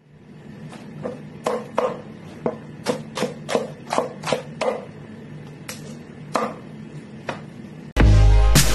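Cleaver chopping napa cabbage on a wooden chopping block: a string of sharp, uneven chops, about two or three a second, with a short pause around five seconds in. Music comes in abruptly near the end.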